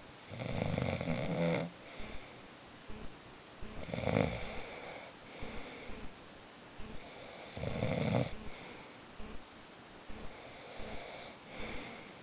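A sleeping person snoring noisily: three strong snores, each about a second long and roughly four seconds apart, with softer breaths between them.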